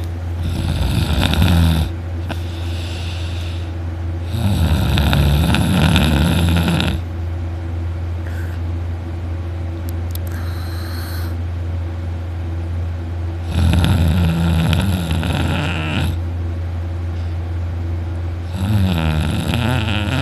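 A young man snoring very loudly in deep sleep while lying on his side: four long snores, each lasting two to three seconds, at uneven intervals, with quieter breathing between them over a steady low hum.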